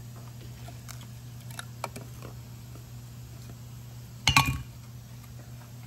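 A steel-backed brake pad clinking against a rusty four-piston disc brake caliper as it is worked by hand: a few light taps, then a short, louder metallic clatter about four seconds in. A steady low hum runs underneath.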